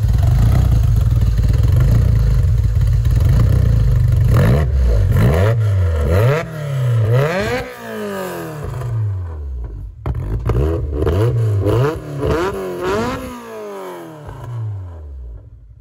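Freshly built Honda VTEC engine on a first start, with an unfinished tune. It runs steadily and loud at first, then is revved up and let fall back over and over in quick blips, settling down near the end. It has a deep, rowdy note and stays below VTEC engagement, at about 6,000–7,000 rpm.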